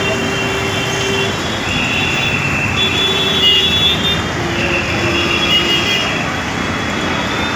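Vehicle horns honking one after another and overlapping over steady road traffic noise, several horns of different pitches, some low and some high, each held for about a second.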